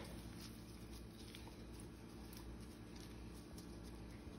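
Faint soft taps and rustles of gloved hands laying sliced bell pepper strips onto sauce-covered chicken in a glass baking dish, over a low steady hum.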